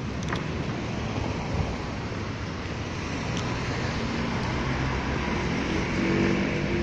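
Street traffic noise: motor vehicles running past steadily, with one engine growing louder near the end.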